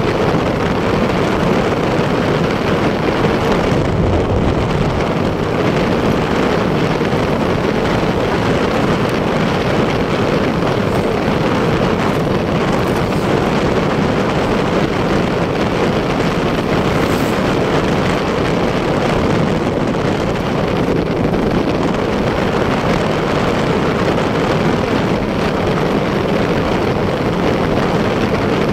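Motorcycle cruising at a steady speed: wind rushing over the microphone mixed with engine and road noise.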